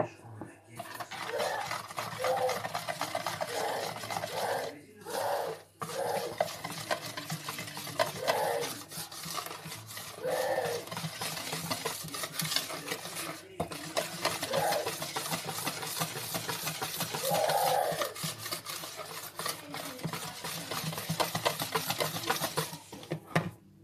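A stainless wire balloon whisk beating thick cake batter by hand in a plastic bowl, as sifted flour is worked in a little at a time. The wires scrape and click quickly and continuously against the bowl, with a few short breaks.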